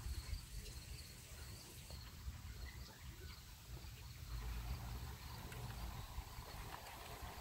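Faint outdoor ambience: insects chirping in a steady repeating pulse over a low rumble, with a faint hum joining about four seconds in.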